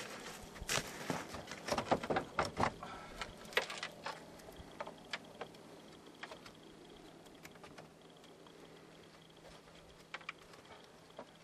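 Scattered clicks, knocks and light clunks of hands working in a car's engine bay, setting a battery in and fitting its terminal clamps. The knocks come thick for the first few seconds, then only now and then; the engine is not running.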